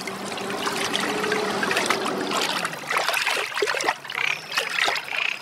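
Water trickling and flowing steadily in a drainage ditch.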